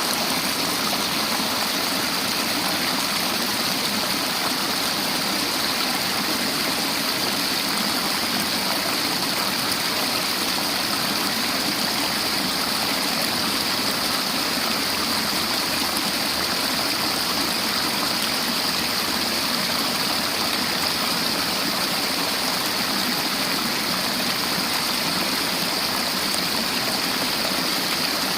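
River water flowing and rushing over rocks, a steady, even rush.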